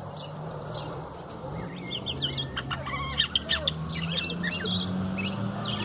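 A huitlacoche, a Mexican thrasher, singing a quick run of varied phrases that starts about a second and a half in and thins out near the end.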